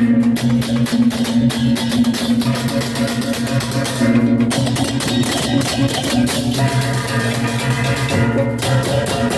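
Balinese baleganjur processional gamelan playing: a fast, dense clatter of struck metal and drums over sustained low gong-like tones.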